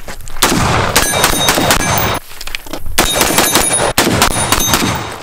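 Rapid gunfire in two quick strings of many shots, the first starting about half a second in and the second about three seconds in. Steel target plates ring between the shots.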